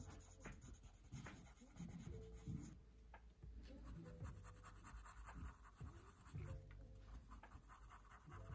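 Faint scratching of a colored pencil shading on coloring-book paper, in many short repeated strokes.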